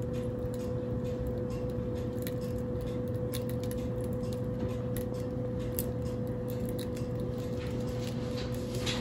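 Crust of a freshly baked loaf crackling as it cools, with scattered, irregular faint ticks and pops. A steady low hum runs underneath.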